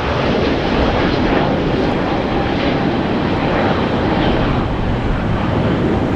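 Airliner engines running at high power as the plane passes: a loud, steady, rushing noise that does not break.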